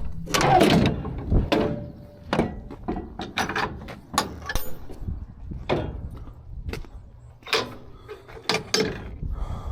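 Skid steer loader clanking: a run of irregular metallic knocks and clicks, loudest in the first second or so, over a low rumble.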